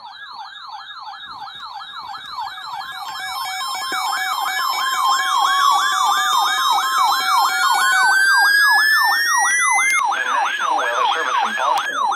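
Electronic emergency-vehicle siren in a fast warbling yelp, growing steadily louder. Through the middle a second siren tone rises steadily in pitch, then cuts off abruptly about ten seconds in, followed by a short burst of hiss.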